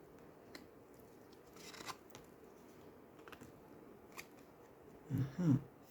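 Faint clicks and a short soft rustle of stiff oracle cards being handled and turned over, with a brief murmur of voice near the end.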